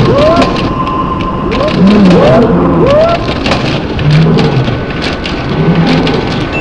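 A dense pile-up of many sound-effects-record tracks playing at once: a steady wash like rain and thunder, crowded with sharp clicks, a steady high tone and repeated short pitched swoops.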